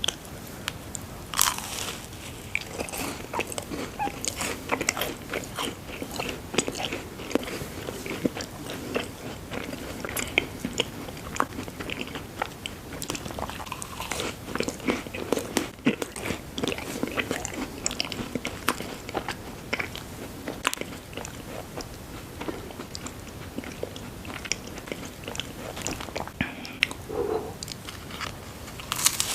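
Close-miked eating sounds: a coconut macaron being bitten and chewed, with many small crisp crunches throughout.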